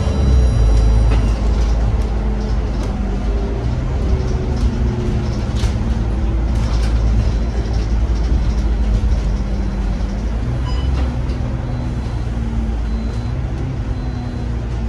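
Alexander Dennis Enviro 500 MMC double-decker bus with its Cummins diesel engine running under way, heard from inside the passenger cabin as a steady low drone. Its pitch drifts down over the first few seconds, then rises and falls gently as the bus changes speed, with a few short rattles around the middle.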